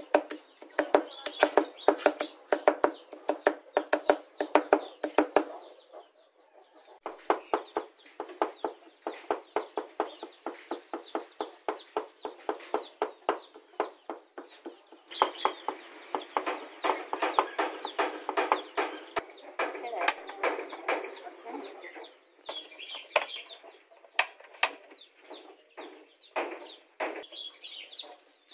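Cleaver chopping fast on a round wooden block, mincing raw meat and then garlic: several sharp strikes a second, with a brief pause about six seconds in.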